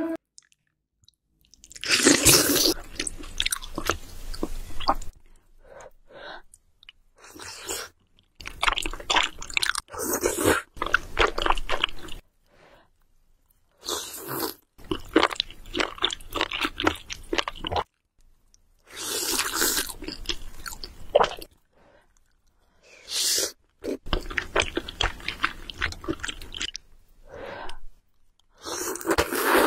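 Close-up eating sounds of a person eating noodles: slurping and chewing with wet clicks and crunches. The sound comes in bursts a few seconds long, broken by short silences between mouthfuls.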